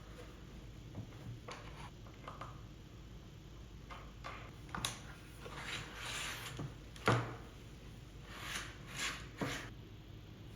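Light knocks, clicks and short scrapes of wood parts and tools being handled on a workbench, with one sharper knock about seven seconds in.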